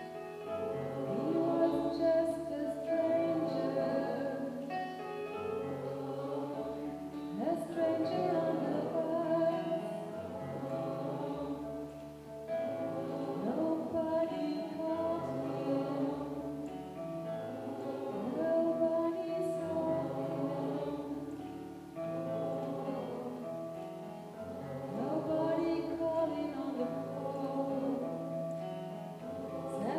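Gospel choir singing, one note held steadily above chords and a low bass that change every couple of seconds.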